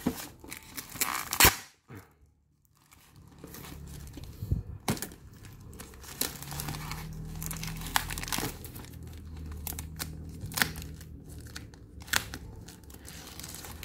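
Black plastic mailer bag being slit with a utility knife and torn open, the plastic crinkling with sharp snaps and rustles, broken by a short pause about two seconds in.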